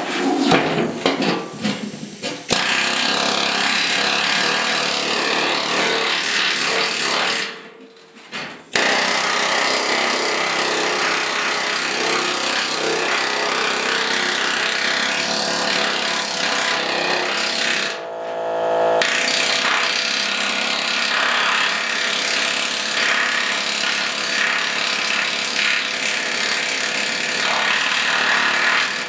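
Small pneumatic air hammer with a flat bit, run at a fairly slow setting, rapidly hammering a sheet-steel fender against a dolly to planish out dents and high spots: a steady metallic chatter. It starts in a few short bursts, stops briefly about a quarter of the way in, and eases off for a moment about two-thirds of the way through.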